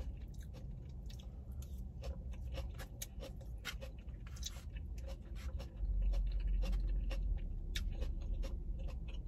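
Close-miked eating of coleslaw: many small wet mouth clicks and crunches of chewing, mixed with light scrapes and taps of a fork in a foam cup. A low rumble swells for a couple of seconds about six seconds in.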